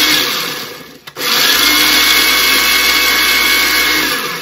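Electric mini food processor running in pulses while it chops garlic scapes and sunflower seeds. The noisy motor whir winds down about a second in, starts again almost at once, and winds down again near the end.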